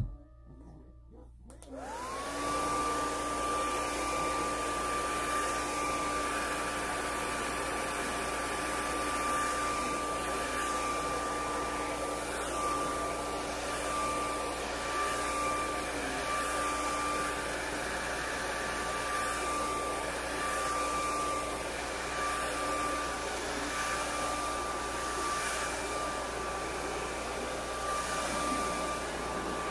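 Handheld hair dryer switching on about two seconds in, its motor whine rising and settling into a steady high hum over rushing air as it blow-dries hair.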